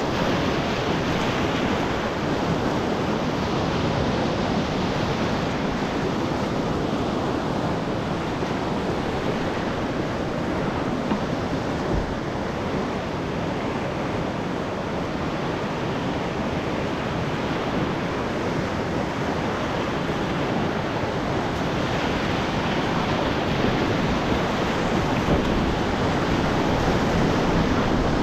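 River whitewater rapids rushing steadily, a dense unbroken noise that grows a little louder near the end.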